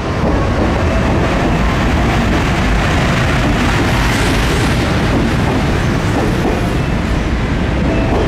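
EF510 electric locomotive and the hauled 737-series EMU cars rolling past close by as the train arrives at the station: a loud, steady rumble of wheels and running gear.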